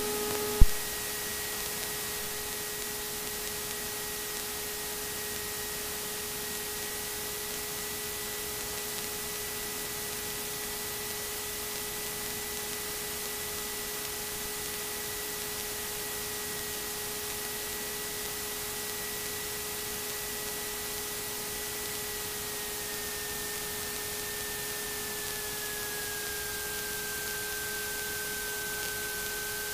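Steady hiss with a few faint, steady hum tones on the aircraft's intercom and radio audio feed. A thin high whine above them slides a little lower late on, then holds.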